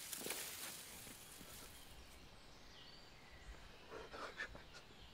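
Hands scraping and digging through damp soil and leaf litter, a rustling scratch that dies down after about two seconds. A brief rustle comes again near the end, over faint bird chirps.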